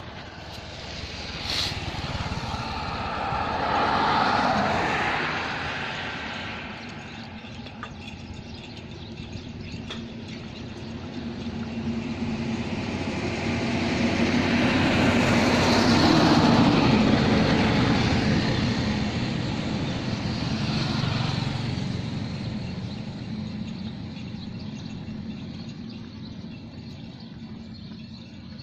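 Motor vehicles passing on a paved road, each pass swelling and fading: a shorter one about four seconds in, then a longer, louder one with an engine hum peaking midway, followed by a smaller swell.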